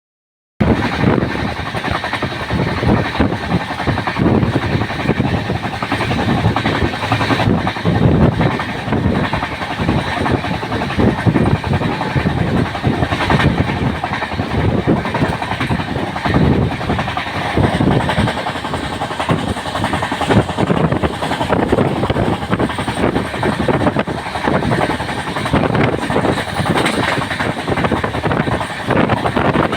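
A moving passenger train running along the track, its wheels and coaches giving a steady dense rattle and clatter.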